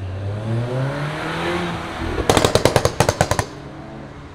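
A tuned Volkswagen Group car accelerates with its engine note rising. About two seconds in, a rapid string of about a dozen loud exhaust pops and bangs follows over roughly a second: the overrun crackle of a pops-and-bangs exhaust tune.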